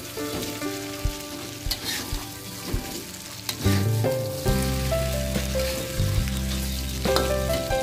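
Chicken pieces sizzling in hot oil and spice paste in an aluminium wok, stirred and turned with a metal spatula that scrapes and clinks against the pan. Music with held notes plays underneath, and a deep low hum comes in about halfway through.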